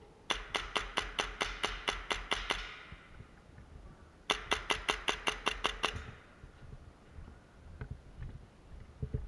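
Airsoft gun firing two strings of rapid shots, about five a second, separated by a short pause.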